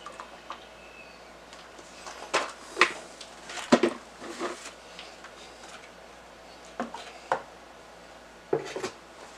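Scattered light knocks and clicks from handling an oil funnel and container while topping up a riding mower engine's oil, about seven small sounds with quiet between them.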